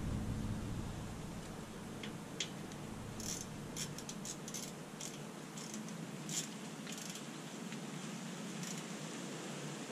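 Scattered light metallic clicks and ticks of a hand tool working on the brake assembly, bunched in the middle of the clip, with a low rumble fading out in the first second.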